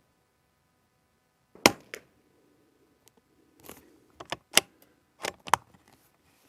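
A single suppressed .22 rimfire rifle shot through a Gemtech suppressor, a sharp crack with no loud boom, followed about two seconds later by a quick run of metallic clicks as the bolt is opened, drawn back and closed to eject the case and chamber the next round.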